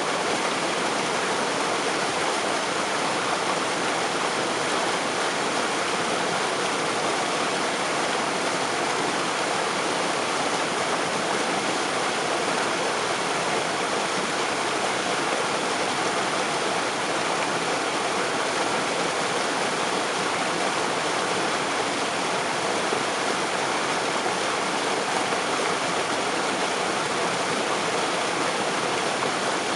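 Waterfall spray: a steady, unbroken rush of falling water.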